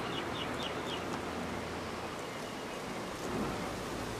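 Outdoor ambience: a steady rushing hiss of open-air background noise, with a quick run of about five high chirps in the first second.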